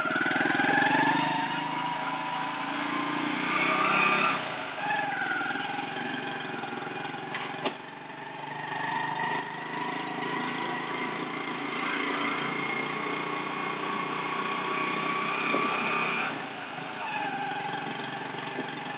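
Motorcycle engine of a motorised becak (motorcycle-and-sidecar rickshaw) running under way, its pitch rising and falling as it speeds up and eases off, heard from inside the sidecar cab. A single sharp click comes about a third of the way through.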